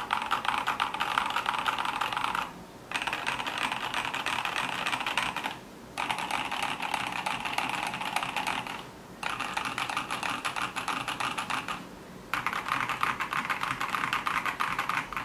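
Typing on a KBD75 V3 75% mechanical keyboard fitted with Boba U4T tactile switches, lubed and filmed, with case and plate foam: rapid keystrokes in five runs separated by short pauses.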